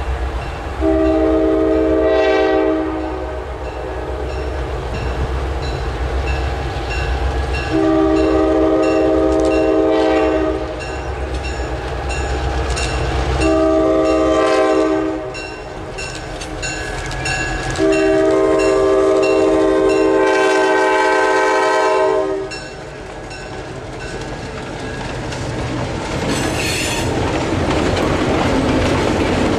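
EMD GP9 diesel locomotive's multi-note air horn blowing the grade-crossing signal (long, long, short, long) over the low rumble of the diesel engines, with a faint bell ringing steadily through it. Near the end the passing coaches' wheels clatter on the rails with a brief squeal.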